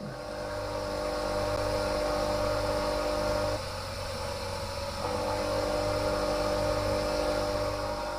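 Bench grinder's electric motor running steadily on 230 V mains from an inverter, a constant hum. It drops in level about three and a half seconds in and comes back up about a second and a half later.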